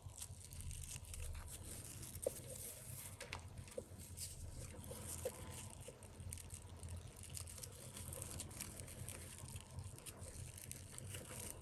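Faint rustling and a few light clicks of paper yarn being worked with a crochet hook as single crochet stitches are made, over a low steady hum.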